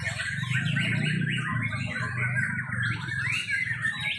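Several white-rumped shamas (murai batu) singing at once from their hanging cages: a dense stream of overlapping, rapidly changing whistles and chirps, over a steady low hum.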